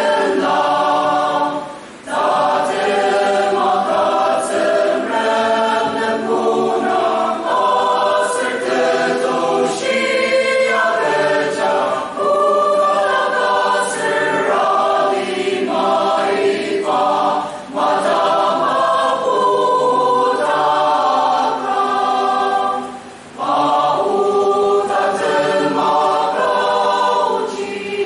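Mixed choir of women and men singing together in several voices, with sustained phrases and brief breaks between them about two seconds in and again later on.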